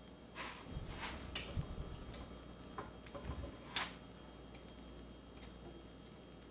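A few light clicks and knocks in the first four seconds, small metal valve-train parts (keepers, retainers, springs) being handled and set down.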